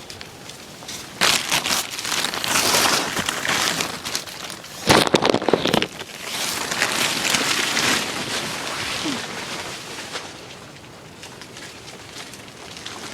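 Hard wind gusting in waves, with a sharp, loud gust about five seconds in.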